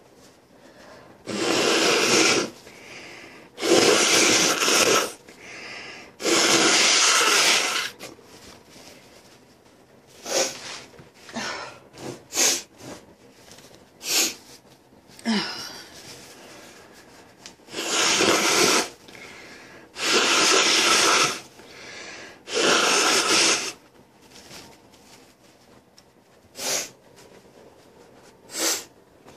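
A person with a cold blowing their nose hard, in six long blows of a second or more each: three at the start and three more in the second half. Short sniffs come between the two sets of blows, and two more near the end.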